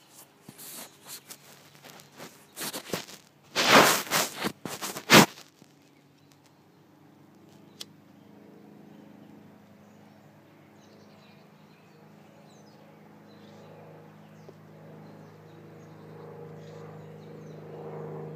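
Loud rustling and knocks close to the microphone for the first few seconds, then a distant engine drone with several steady low tones that grows slowly louder toward the end.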